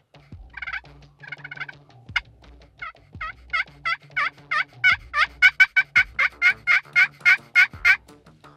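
Pot-style friction turkey call scratched with a striker, making a run of hen-turkey yelps: two short soft runs early, then a long, even series of about three yelps a second that grows louder and stops about eight seconds in.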